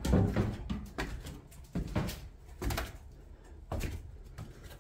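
Footsteps going down unfinished wooden stairs, a knock about once a second.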